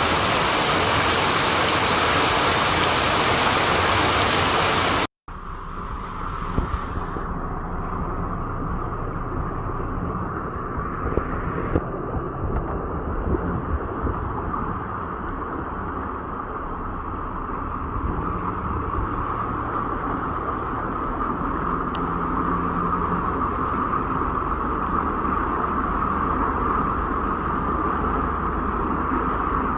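Heavy rain pouring down hard for about five seconds, then a sudden cut to a quieter, steady rush of water with a low rumble and a few scattered knocks.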